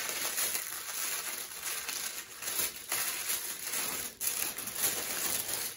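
Tissue paper rustling and crinkling steadily as hands unfold it.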